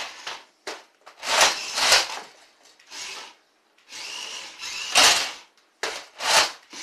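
Motorized Nerf blaster whirring in several short bursts as its flywheel motor spins up and fires darts.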